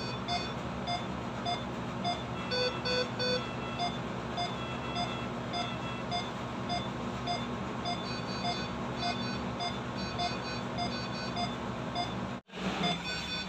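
Hospital bedside medical equipment beeping: a low beep repeating a little under twice a second, with short runs of higher-pitched alarm beeps at several pitches over it and a steady machine hum beneath.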